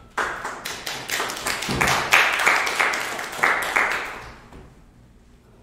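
A small audience clapping, starting suddenly and dying away after about four seconds.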